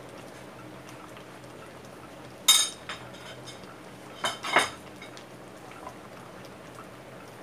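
Curry simmering in a pot with faint bubbling ticks. A sharp ringing metal clink of kitchen utensils comes about two and a half seconds in, then two more clinks close together about four and a half seconds in.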